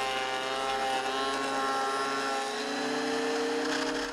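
Triton benchtop thickness planer running with a steady motor whine. About two and a half seconds in, its pitch rises slightly, and the sound stops abruptly near the end.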